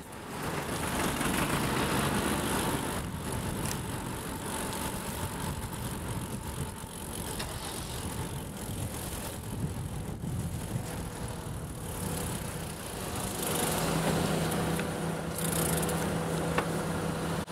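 Road traffic heard from a cross bike on a city street: motor vehicles passing with engine and tyre noise. From about two-thirds of the way through, a steady low engine hum from a nearby vehicle sits under the traffic.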